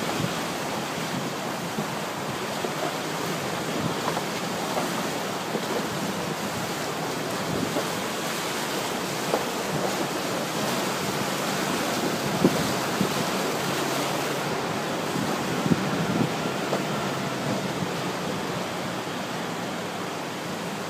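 Steady rushing of flowing water from a stream or river, with a few brief louder ticks.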